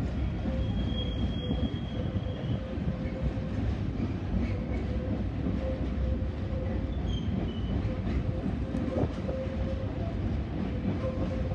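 Freight train of container wagons rolling past: a steady rumble of wheels on rail with a wavering mid-pitched hum. A thin high wheel squeal sounds briefly near the start.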